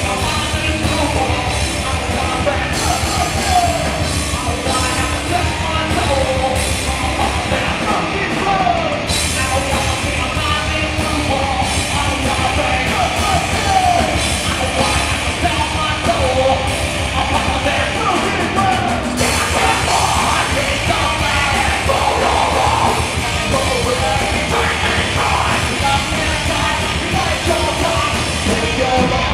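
Live heavy rock band playing: distorted guitars and drums under a shouted, sung vocal, loud and steady throughout.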